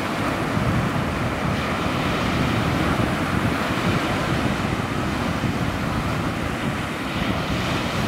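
Wind buffeting the microphone, a steady low rumble, over the continuous wash of choppy sea waves.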